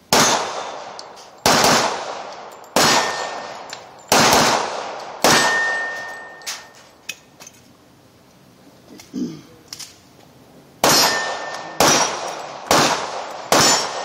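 Handgun shots at a steady pace: five about a second and a quarter apart, a pause of about five seconds, then four more in quicker succession, each with a long echoing tail. After some shots a steel target rings with a clear, high tone.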